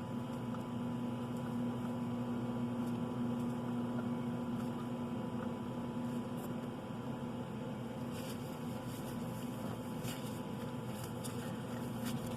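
A steady low electrical hum, with a few faint light clicks of hands handling parts from about eight seconds in.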